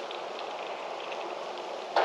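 Steady wind blowing through trees and foliage, a continuous rustling hiss with faint light ticks mixed in.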